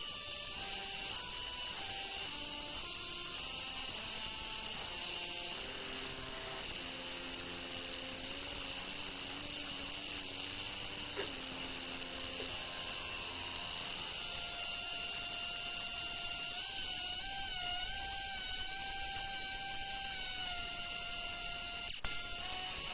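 Metal halide arc lamp's arc sounding synthesizer notes over a steady high hiss: a quick run of stepped notes, then lower held notes, then a long wavering tone in the second half, with a brief break near the end.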